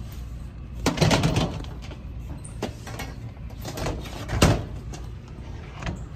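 A few knocks and clatters as a stainless steel simplehuman trash can is handled and pulled from a shelf. The loudest knock comes about four and a half seconds in.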